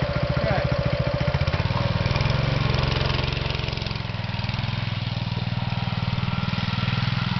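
Go-kart's small engine running, its pulses rising in pitch about a second and a half in as it revs up and the kart pulls away through snow, then running steadily.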